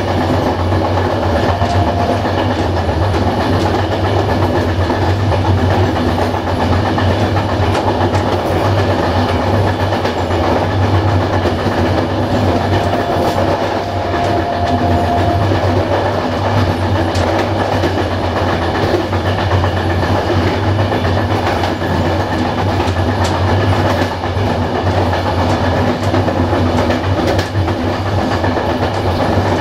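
Loco-hauled passenger train running at speed, heard from the rear of the train: a steady rumble of wheels on the rails with a low hum and scattered wheel clicks. A faint brief whine comes in about halfway through.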